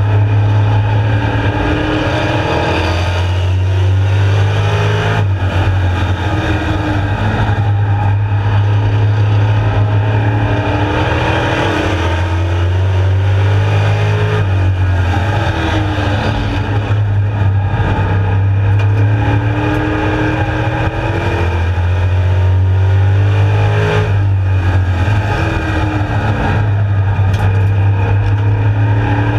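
Street stock race car's V8 engine at racing speed, heard from inside the cockpit. The revs climb and drop again every few seconds as the car accelerates and lifts, over a steady heavy rumble.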